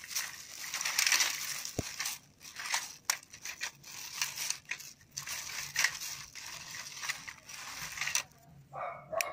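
Thin plastic carrier bag rustling and crinkling in irregular crackles as a hand rummages through it, with a few light knocks from the items inside.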